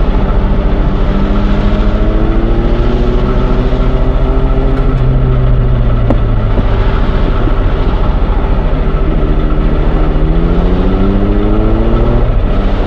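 Train running with a steady rumble and fast low pulsing under an engine tone that climbs slowly, drops back about nine seconds in, then climbs again.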